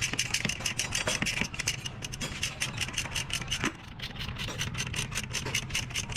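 Rapid, even rasping strokes, about five or six a second, over a low steady hum.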